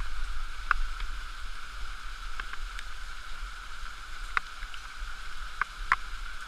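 Muffled, steady rush of a small waterfall running down a rock gully, heard through a waterproof GoPro housing, with a few light, sharp clicks scattered through.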